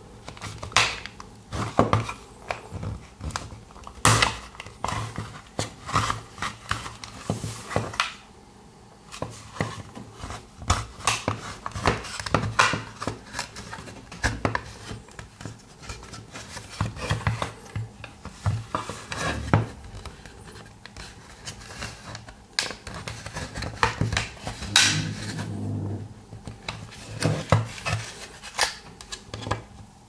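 A flat pry tool scraping and levering along the seam of a screwless plastic remote-control case, with irregular sharp clicks and scrapes of plastic on plastic as the snap-fit halves are forced apart.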